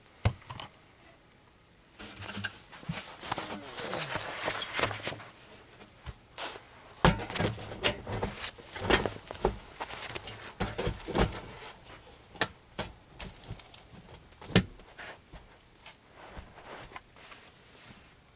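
Irregular knocks, clicks and rustling from handling and movement, with a few sharp knocks standing out.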